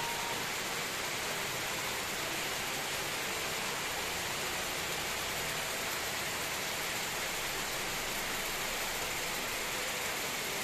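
Heavy rain falling steadily on coconut palms and broadleaf trees, an even hiss with no let-up.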